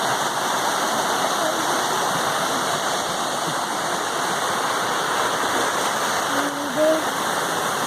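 Waterfall rushing steadily, an even roar of falling water. A voice is heard briefly near the end.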